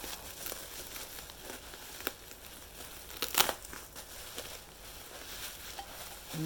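Wrapping paper crinkling and tearing as a packed item is unwrapped by hand, with a sharp crackle about two seconds in and a louder burst of crackling a little past the middle.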